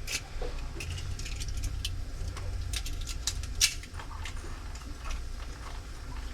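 Scattered light clicks, taps and scrapes, a few sharper ones about three and a half seconds in, over a low steady hum.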